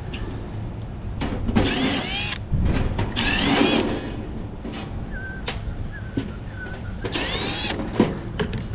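Cordless drill-driver spinning out sheet-metal screws from an HVAC unit's access panel: three short runs, each rising and falling in pitch, with a few sharp clicks in between, over a steady low rumble.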